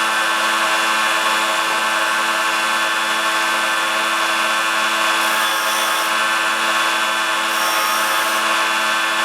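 Small electric grinding tool running steadily while a steel bolt is ground down into a bandsaw blade guide, with two brief spells of harsher hiss about five and a half and eight seconds in. It cuts off abruptly at the end.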